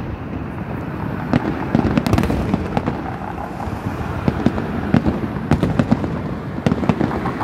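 Aerial fireworks display bursting: many sharp bangs and crackles at irregular intervals over a continuous low rumble.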